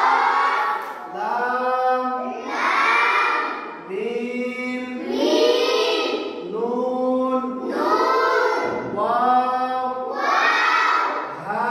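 A group of children reciting a maktab lesson in unison, a sing-song chant of short phrases about a second apart, each rising and falling in pitch.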